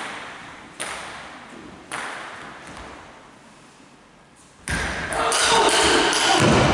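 Sharp pings of a table tennis ball, about one a second, each ringing on in the hall's echo. About two-thirds in comes a loud thump, then a rising crowd noise.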